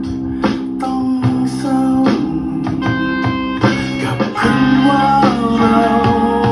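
A recorded song with guitar playing back through a guitar amplifier's speaker, fed from an audio interface's line out. The speaker colours the whole mix, so the bass and other instruments come out sounding like a guitar speaker, though not badly.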